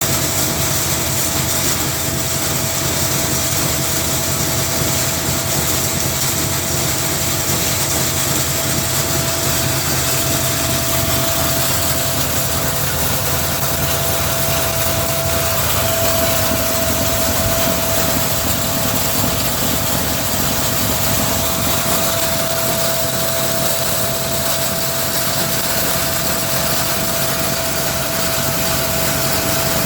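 Rawat RT feed mill grinder, driven by a 3 HP single-phase electric motor, running steadily: an even mechanical rumble with a constant whine on top.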